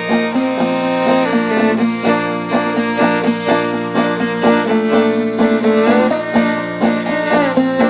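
Old-time music: a clawhammer banjo playing a steady run of plucked notes under a fiddle that holds and slides between sustained notes.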